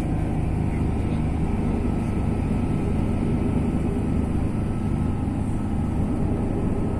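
Steady engine and road-noise rumble from inside a moving road vehicle, even throughout with no distinct events.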